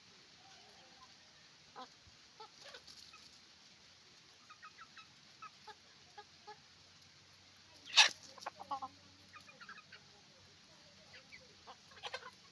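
Chickens clucking in short, scattered calls from several birds on a chicken farm, with one much louder sharp sound about eight seconds in.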